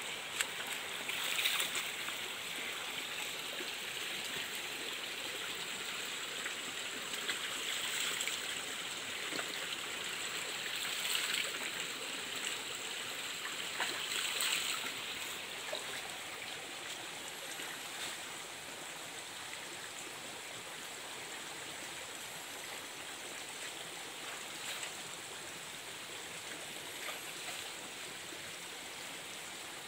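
Shallow rocky stream running with a steady rush of water, with a few brief louder splashes in the first half.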